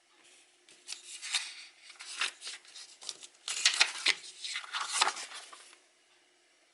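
Handling noises: a run of crisp rustles, scrapes and clicks lasting about five seconds, stopping shortly before the end.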